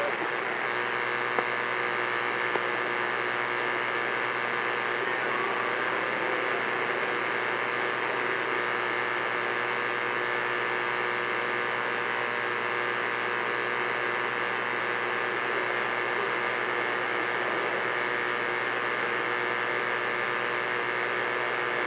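CB radio receiver putting out steady static and hum on a channel with nobody transmitting, with several faint steady tones mixed into the hiss.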